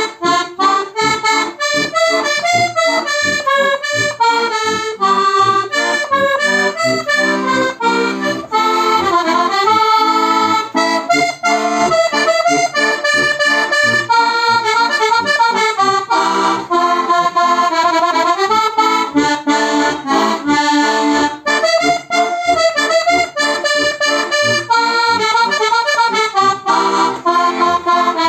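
Heligonka, a Slovak diatonic button accordion in C/F with three reed sets on tipo a mano aluminium reed plates, playing a lively Romani folk tune: a running melody with chords over an even pulse of short bass notes.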